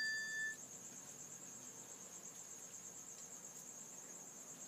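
A cricket trilling steadily in a high, pulsing tone. The last ring of a bell-like chime dies away in the first half second.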